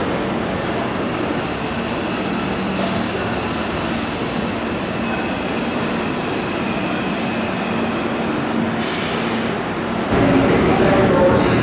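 Hankyu 8000-series electric train creeping slowly toward the end of the track to stop, with steady running noise and a faint high whine. A short burst of air hiss comes about nine seconds in, and a louder wash of station noise sets in near the end.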